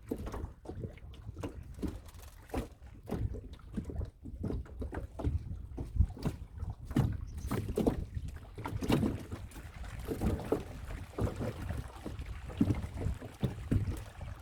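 Water splashing and slapping around a small boat on a fish pond, with many short irregular splashes.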